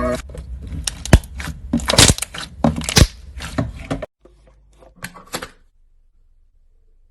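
Slime being squeezed and worked by hand, giving a quick run of sharp pops and crackles for about four seconds, then a few more pops about five seconds in.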